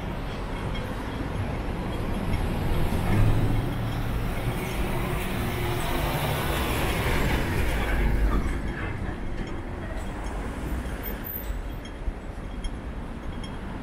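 Road traffic driving past: vehicle engines and tyres on the street, swelling as a vehicle passes close a few seconds in and easing off in the second half.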